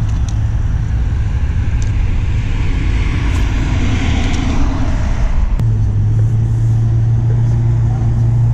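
Road traffic: a car passes close by, its tyre noise swelling and fading about three to five seconds in, over a steady low rumble. A steady low hum sets in just after halfway.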